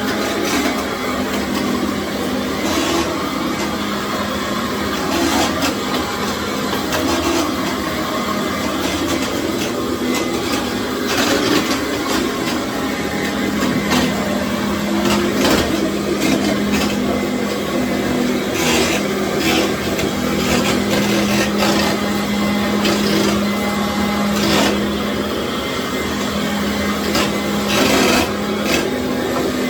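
Commercial vacuum cleaner running steadily on a tile floor, its motor giving a constant hum under the rush of air, with scattered brief scrapes and clicks as the head moves over the tile.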